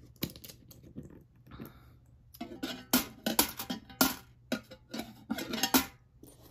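Coins being handled on a table: a string of sharp clicks and clinks, lighter at first and coming thick and loud in the second half.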